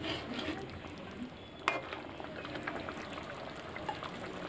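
Chicken curry gravy simmering in a metal pan, a faint steady bubbling crackle, with one sharp tap about a second and a half in.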